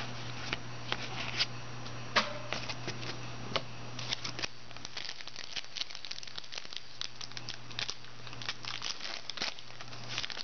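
Foil trading-card pack wrapper being torn open and crinkled in the hands, a run of many small sharp crackles.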